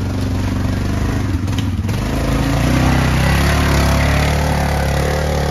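Yamaha Grizzly ATV's single-cylinder four-stroke engine running under throttle on a dirt trail. It gets louder from about two seconds in and eases slightly near the end.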